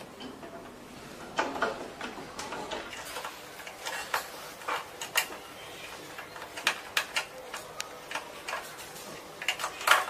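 Irregular light clicks and taps of plastic machine parts being handled and fitted together, with a quick cluster of louder clicks near the end.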